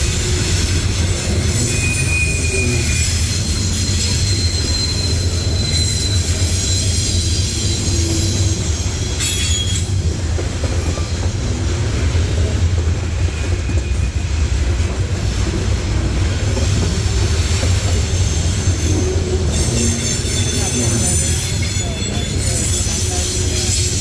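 Norfolk Southern train rolling past with a steady, loud rumble from its cars and wheels. Brief high wheel squeals come and go, one in the first few seconds.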